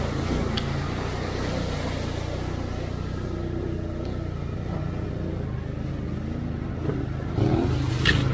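Can-Am Outlander 850 ATV's V-twin engine running steadily on the trail, then revving up and down about seven seconds in. A single sharp knock comes just before the end.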